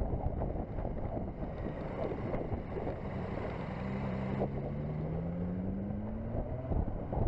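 Motorcycle ride recorded on the bike, with a steady rush of wind over the microphone and the KTM 1190 Adventure's V-twin engine underneath. About halfway through, the engine note rises steadily for a few seconds as the bike accelerates out of a bend.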